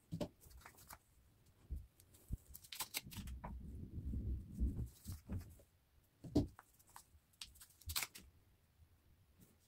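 Handling noises from hand-sewing work: several light knocks and clicks, and a muffled rustle of fabric in the middle.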